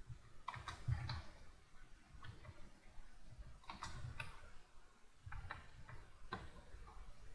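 Computer keyboard typing: keys clicking in uneven runs of quick keystrokes with short pauses between them.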